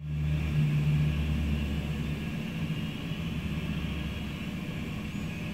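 Boeing 727-200's Pratt & Whitney JT8D turbofan engines running at taxi power: a steady low rumble under a high whine, with the deep tones strongest in the first two seconds.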